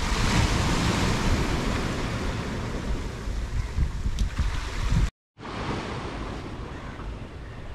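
Sea surf washing on the shore with wind buffeting the microphone, a steady rush with a rumbling low end. It cuts out for a moment about five seconds in, then carries on a little quieter.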